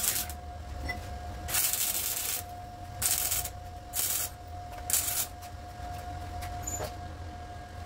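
Gas MIG (wire-feed) welder stitch-welding a car's steel body panel, its arc crackling in about five short bursts. The longest burst, nearly a second, comes about one and a half seconds in. A faint steady tone runs underneath.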